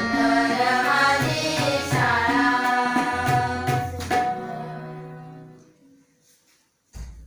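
Girls singing together to harmonium and tabla, the song ending a little past four seconds in. The harmonium holds a last chord that fades away, and near the end there is a single low thump.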